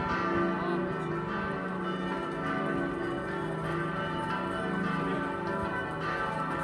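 Partial peal of four church bells ringing together, their strokes overlapping in an unbroken stream of ringing tones. Two bells are 1736 bells by Johann Baptist Dival, 1,400 kg on d' and 1,100 kg on e'. Two are 2013 Perner bells, 706 kg on f-sharp' and 421 kg on a'.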